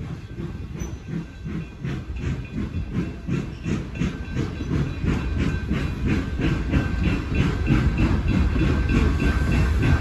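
Freight cars rolling past on jointed track: the wheels click rhythmically over the rail joints over a low rumble, getting louder, with a hiss of steam underneath.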